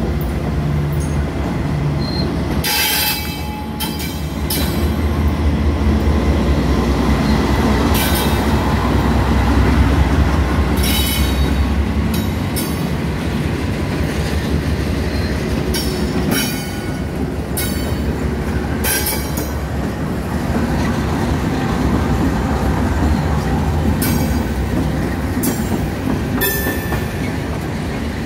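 Freight train passing close by, led by Norfolk Southern diesel locomotives. The engines give a heavy low rumble over the steady noise of wheels on the rails. About a dozen brief, sharp wheel screeches are scattered throughout.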